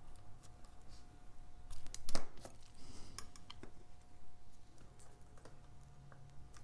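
Small metal tools clicking against watch parts while a watch movement's calendar works are assembled: scattered light ticks, with one louder click about two seconds in.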